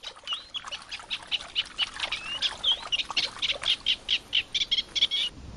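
Little grebe chicks giving a rapid, continuous series of short, high-pitched begging peeps, about five a second, some rising or falling in pitch. The peeps cut off suddenly near the end.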